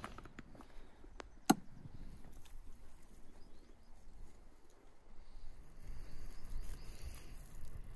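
Handling sounds as a cow tail is hung from a branch and skinned with a knife: a few light clicks early, one sharp click about a second and a half in, then quiet cutting with a low rumble.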